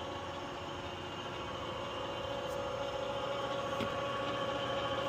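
Omni Machine 1336OM 13x36 engine lathe running under its 1.5 HP single-phase motor, spindle turning with a steady gear whine and hum; it gets slightly louder about two seconds in.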